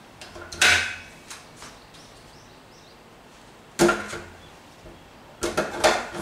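Sharp knocks and clacks of a whiteboard and its markers being handled: one loud knock about half a second in, another near the middle, and a quick run of several knocks near the end.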